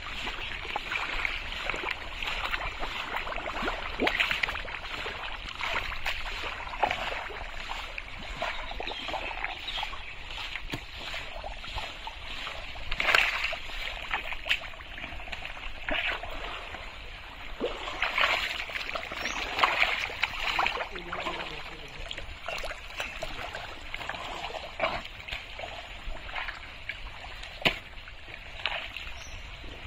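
Legs and hands sloshing and splashing through thick mud and shallow water in a drained pond, in irregular bursts, with a few sharp knocks.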